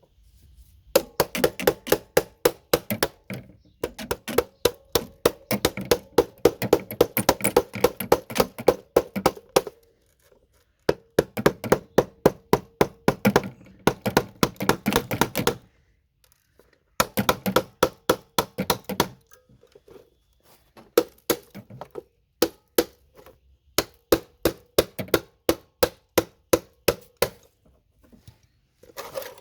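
Hammer striking RAM slots on a computer motherboard to knock them off the board. Rapid repeated knocks, about three a second, come in runs of several seconds with short pauses between.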